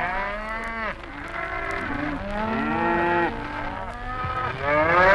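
A herd of cattle mooing, several long calls overlapping one another, the loudest near the end.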